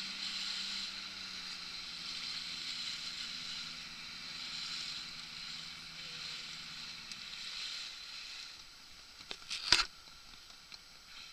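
Water lapping and sloshing against a small boat's hull, with the low steady hum of a boat engine that fades out about seven seconds in. A few clicks and one sharp knock come near the end.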